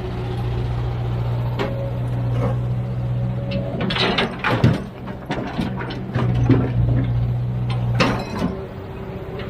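Heavy diesel machine running with a steady engine drone, broken by a cluster of loud metal clanks and knocks about four to five seconds in and another sharp knock about eight seconds in.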